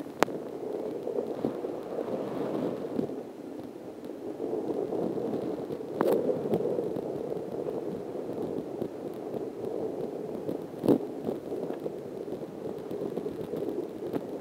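Rough, steady rumbling noise from wind and movement on a camera microphone carried along on a run, with a few sharp knocks: one right at the start, one about six seconds in and one about eleven seconds in.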